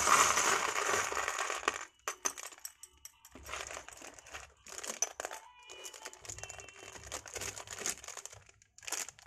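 Plastic bags of Lego parts crinkling as they are handled, loudest for the first couple of seconds. Small plastic Lego pieces click and rattle against one another in a plastic tub.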